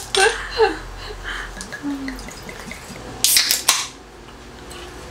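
A beer can being opened: the pull tab cracks and the can gives a short hiss about three seconds in. Before that come light clinks of a glass bottle and tableware being handled.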